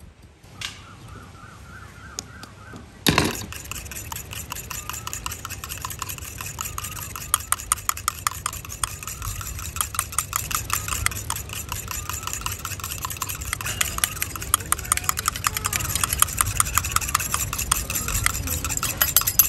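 A metal utensil scraping rapidly and steadily against a metal cooking pot, which rings under the strokes. It starts with a sharp clang about three seconds in.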